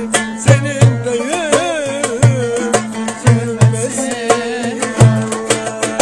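Darbuka goblet drums playing a lively Turkish folk rhythm. Deep bass strokes fall in a repeating pattern, with quick, sharp rim strokes between them, under a wavering, ornamented melody line.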